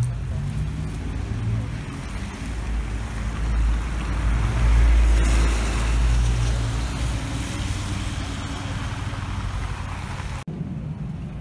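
Street traffic: a car driving by close on a wet, slushy road, its tyre hiss and engine rumble swelling to loudest about five seconds in, then easing. The sound changes abruptly near the end.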